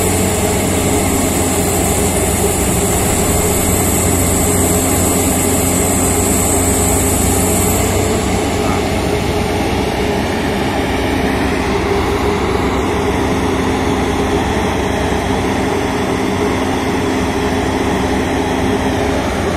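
Rotary piling rig's diesel engine running steadily as it works the kelly bar and drilling tool in the borehole. A high whine slides down and fades about eight seconds in.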